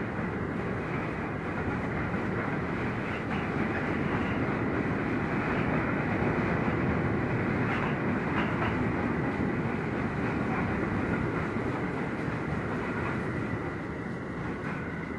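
Freight train rolling past, its wagon wheels clacking over the rail joints. The sound builds to its loudest about halfway through and fades toward the end.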